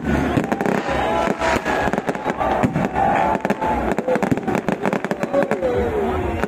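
Aerial fireworks bursting overhead in a rapid, continuous string of bangs and crackles.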